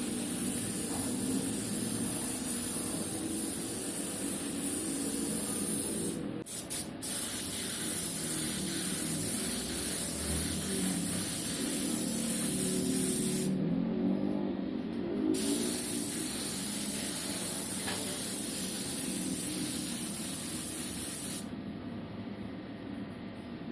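Air spray gun spraying a coat of paint: a steady high hiss that stops briefly about six seconds in, again for over a second midway, and near the end as the trigger is let off. A lower steady hum runs underneath.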